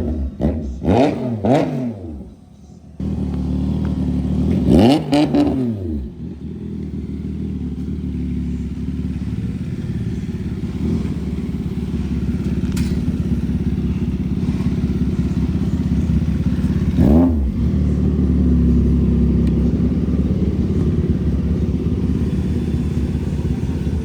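CFMoto 675SR-R's engine through an Austin Racing full exhaust system on track. It revs up and drops back quickly several times in the first two seconds, dips briefly, then settles into a long steady engine note, with short sweeps of pitch up and back down about five and seventeen seconds in.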